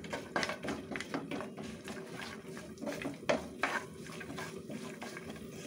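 A spatula scraping and clicking against a nonstick frying pan in irregular strokes, stirring sliced dry fruits being lightly roasted.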